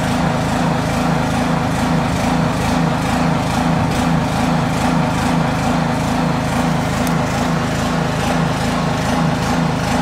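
Small gasoline engine of a sap transfer pump running steadily at constant speed, drawing maple sap out of a collection barrel through a hose.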